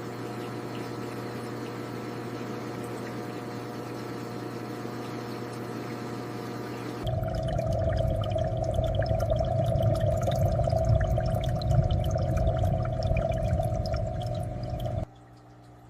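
Aquarium water sounds: steady pouring and bubbling water. It grows louder and fuller about seven seconds in, then drops suddenly to a faint trickle near the end.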